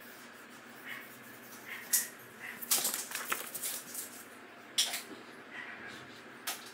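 Sheets of paper being handled and slid across a tabletop: several brief rustles, a cluster of them around the middle and another sharp one near five seconds.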